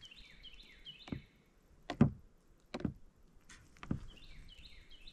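A small bass flopping on the line and knocking against the kayak in four dull thumps about a second apart, the second the loudest. A bird sings a quick run of short falling notes at the start and again near the end.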